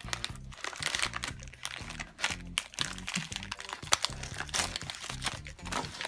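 Crinkling plastic and foil packaging: a foil blind bag and the small clear plastic bag of toy pieces inside it handled and pulled apart by hand, in quick irregular crackles, over background music.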